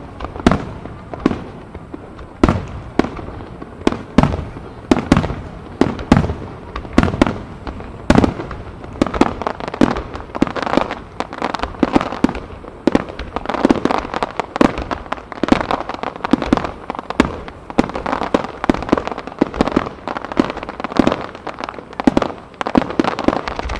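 Aerial fireworks of a starmine barrage: shells bursting in rapid succession, several bangs a second, with crackle between them that grows denser in the second half.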